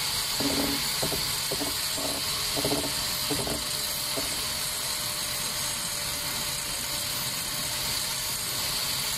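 Steady mechanical noise of construction-site machinery. A few short pitched sounds recur in the first four seconds.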